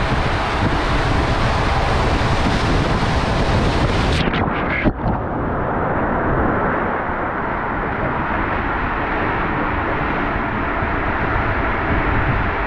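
Water rushing and an inflatable tube sliding down an enclosed water slide, heard from a camera on the rider as a steady, loud rush. About five seconds in there is a splash, and after it the sound turns duller.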